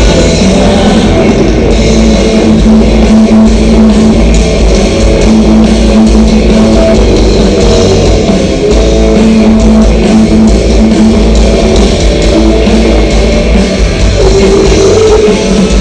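Rock band's sound check blaring over a stadium PA: distorted electric guitars and drum kit playing loudly, heard from the street outside the stadium.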